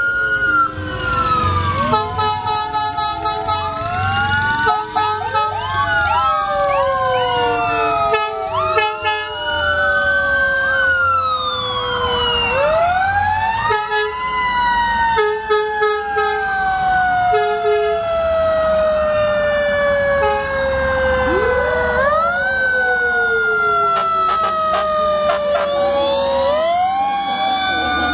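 Several fire truck and ambulance sirens sounding at once, overlapping wails that rise quickly and fall in long slow glides. Short horn blasts cut in about two, four and nine seconds in.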